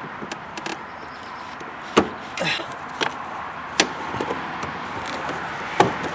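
A handful of sharp plastic clicks and knocks, about four spread over several seconds, with a short rustle, as a car wiring harness is handled and pressed into its plastic retaining clips, over a steady background hiss.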